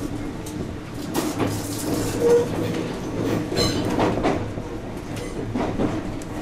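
JR West 221 series electric train running, heard from inside the front car, its wheels clacking over rail joints at uneven intervals. Two short, higher squeals sound about two and a half and three and a half seconds in.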